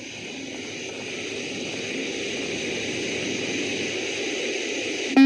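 A steady rushing noise that slowly grows louder, cut off near the end by a short, loud beep from the beep-test recording that signals the end of a shuttle.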